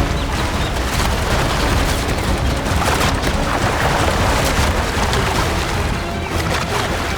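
Background music with a heavy low rumble and scattered sharp hits.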